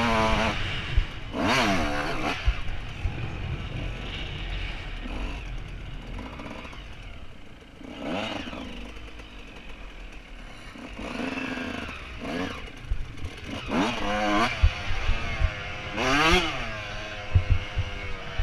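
Suzuki RM125 125cc single-cylinder two-stroke motocross engine under way, revving up and dropping off repeatedly as the rider works the throttle through the gears. Several sharp knocks come in the second half.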